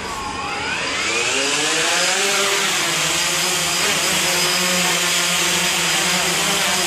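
XK X380 quadcopter's four motors and propellers spooling up as it lifts off the floor: a loud whine that climbs in pitch over the first two seconds, then holds steady with a rushing hiss of propeller wash as it hovers low.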